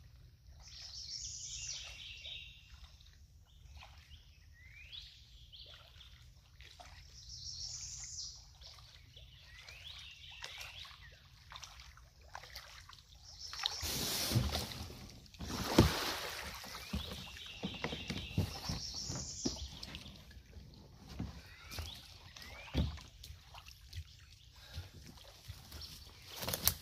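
A songbird repeats a short high phrase every several seconds over quiet outdoor background. About halfway through, water splashes and sloshes with a few knocks as the kayak comes ashore; this is the loudest part.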